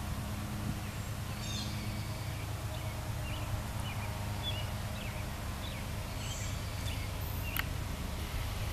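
Birds chirping in short scattered calls over a steady low rumble from the approaching freight train's diesel locomotives. A single sharp click comes near the end.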